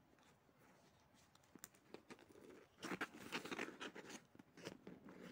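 Soft rubbing and scuffing of a silicone sleeve being worked off a small plastic camera body by hand, with a few light clicks. It is busiest in the second half.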